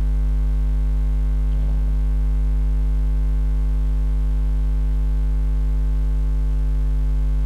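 Steady electrical mains hum, a low 50 Hz drone with a buzzy stack of overtones, running unchanged on the recording.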